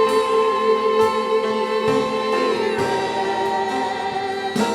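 Live worship singing with instrumental accompaniment, a slow praise song. The singers hold a long note on the word "Spirit", and it gives way to a lower note about two and a half seconds in.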